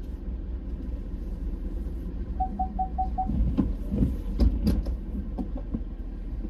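A vehicle's engine running with a steady low rumble; about two and a half seconds in, five quick electronic beeps, then a run of knocks and clicks, the loudest just past the middle.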